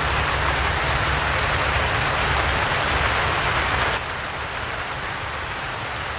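Steady rain on the plastic sheeting of a high tunnel, with a low rumble under it. The noise drops abruptly to a lower level about four seconds in.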